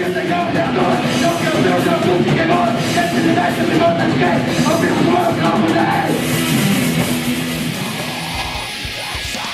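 Loud hardcore music with electric guitars. A high melodic line repeats over the first six seconds or so, and the music thins out a little near the end.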